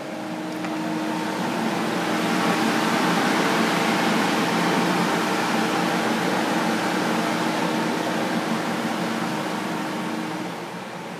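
Centrifugal air movers (carpet-drying blowers) running on flood-soaked carpet: a steady rushing whoosh with a low hum, swelling louder about a second in and easing off near the end.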